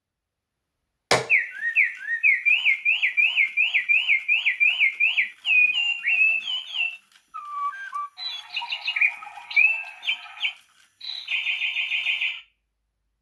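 A sound-activated electric toy bird plays chirping birdsong from its speaker. A sharp click comes about a second in, then a long run of quick rising chirps, about two or three a second. Varied chirps follow, and a fast trill that stops shortly before the end.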